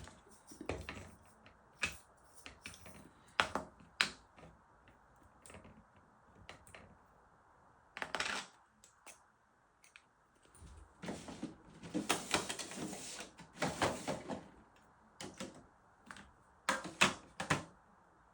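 Small hard objects being handled on a tabletop: scattered clicks and taps, with a longer stretch of rustling clatter about eleven to fourteen seconds in.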